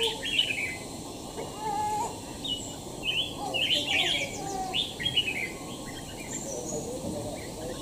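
Songbirds chirping and singing, a busy run of short high chirps with a few lower whistled notes among them.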